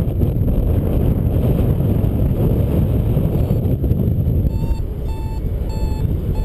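Wind buffeting the microphone of a paraglider in flight, a steady low rumble. About two-thirds of the way through, a flight variometer starts beeping in short tones about twice a second, the signal that the glider is climbing in rising air.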